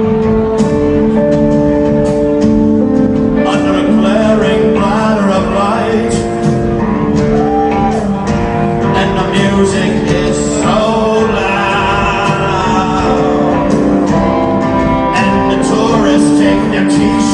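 Rock band playing live, guitars with some singing over a steady beat.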